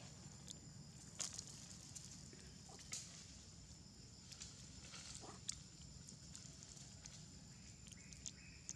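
Near silence: faint steady background hum with a thin high steady tone, broken by a few soft scattered clicks.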